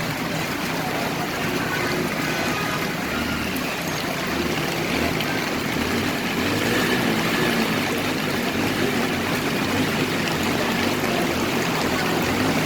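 Steady wash of floodwater on a waterlogged street, with a vehicle engine running low underneath.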